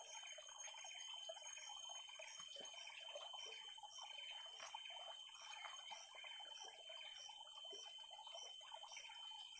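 Faint forest insect chorus: steady high-pitched buzzing with a regular chirp repeating about every two-thirds of a second. Light scraping and handling sounds run underneath it.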